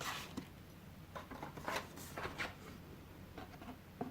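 Board game cards being handled and flipped over on a table: a string of soft scrapes and light taps.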